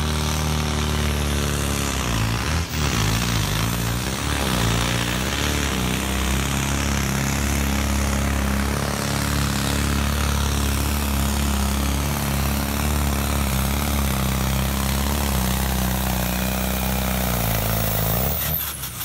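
Pulling tractor's diesel engine at full throttle under heavy load, running steady with its pitch wavering for the first few seconds, then throttled off near the end.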